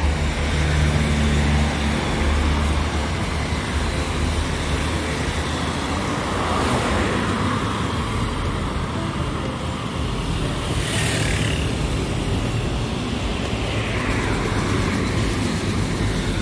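Steady road and traffic noise heard from a moving vehicle, with other vehicles rushing past, the loudest a little past halfway through.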